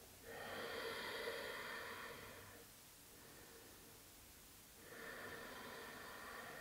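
A woman breathing slowly and audibly while holding a yoga stretch: one long, soft breath in the first two and a half seconds, then another starting about five seconds in.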